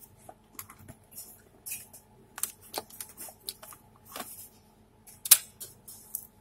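Irregular plastic clicks and scrapes as a laptop DVD writer is slid into its drive bay and the laptop's plastic case is handled, with one sharper click about five seconds in.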